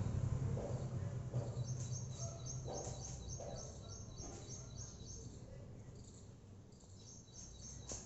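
A small bird chirping in quick runs of short high calls, about four a second, twice, over a low steady background hum.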